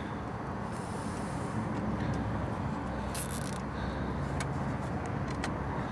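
Nylon zip tie being drawn tight with needle-nose pliers: a short ratcheting rasp about three seconds in, then a few light clicks, over a steady low mechanical hum.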